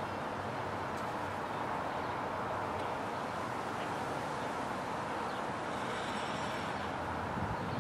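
Steady outdoor background noise with no distinct events, and a brief low thump near the end.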